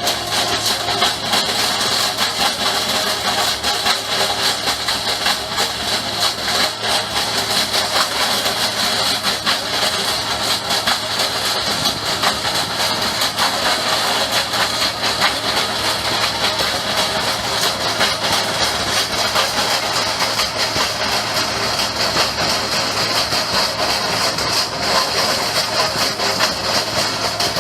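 A heavy machine's engine running steadily, with constant fine crackling and clatter over it.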